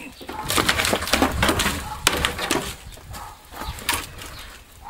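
Weathered wooden planks of an old shed wall being pushed and wrenched loose by hand: cracking, creaking and scraping of wood. Sharp knocks come about two seconds in and again near four seconds.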